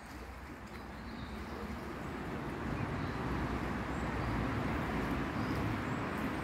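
Road traffic noise rising steadily in level, as of a vehicle approaching, with faint bird chirps above it.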